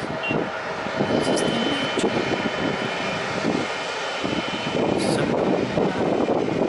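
Airbus A330-200's Rolls-Royce Trent 700 turbofans running at taxi power as the jet rolls slowly along the taxiway: a steady, loud rumble that swells a little about five seconds in.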